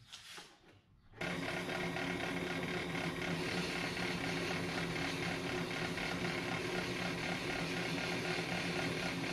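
Ammco brake lathe switched on about a second in, its motor and spindle then running steadily with a constant hum as the brake rotor turns on the arbor.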